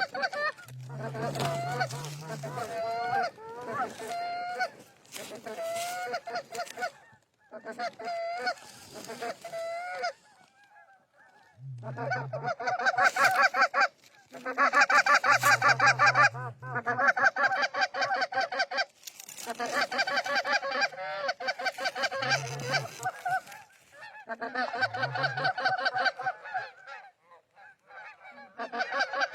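Goose honks and clucks in quick, close runs of a few seconds each, with short pauses between.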